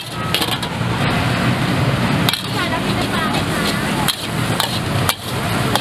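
Pad thai being stir-fried in a wok: a metal spatula clinks and scrapes against the pan in quick, irregular knocks over a steady sizzling hiss.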